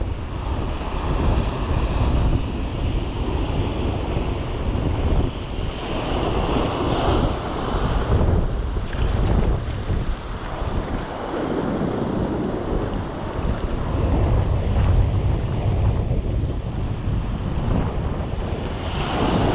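Surf breaking and washing over shoreline rocks, rising and falling every few seconds, with wind buffeting the microphone.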